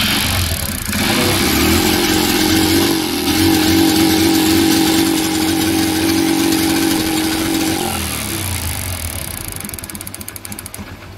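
Honda Twister's single-cylinder engine being turned over on its electric starter for a spark check at the plug. It makes a loud, steady mechanical sound for about eight seconds, then dies away unevenly over the last three seconds.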